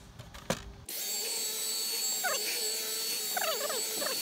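Dyson V11 cordless stick vacuum running steadily with a high motor whine, switching on about a second in. A few brief squeaks slide in pitch midway and near the end.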